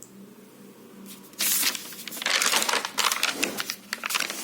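Irregular rustling and crinkling with sharp clicks, starting about a second and a half in, like objects or paper being handled close to the microphone.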